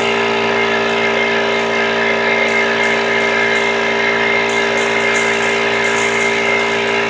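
Harbor Freight 21-gallon oil-lubricated air compressor running, loud and steady: an even motor-and-pump drone with a high whine over it that holds the same pitch throughout.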